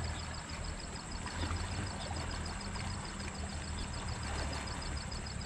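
Insects in the riverbank grass chirping in a fast, even pulse, about five or six chirps a second, with a thin steady high buzz above, over a steady low rumble.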